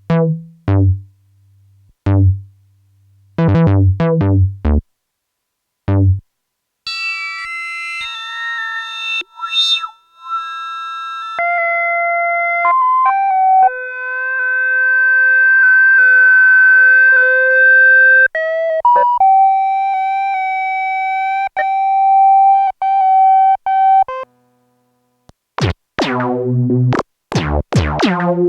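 Arturia MicroFreak synthesizer playing. It starts with a few short, deep bass notes, then a slow melody of long, held high notes with a pure tone, stepping up and down in pitch. Deep bass notes with a bright, buzzy edge come back near the end.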